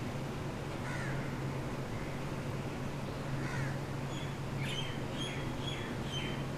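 Birds calling, a handful of short chirping calls that cluster in the second half, over a steady low rumble.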